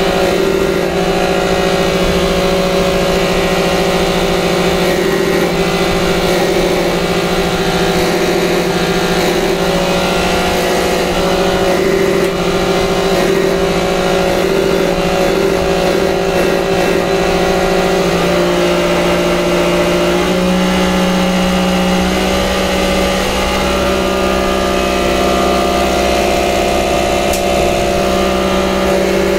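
Diesel pump test bench running a Bosch injection pump at a steady speed: a loud, even mechanical hum with a few steady tones. The tone shifts about 18 seconds in and again about 20 seconds in, a change in the pump's running speed or setting.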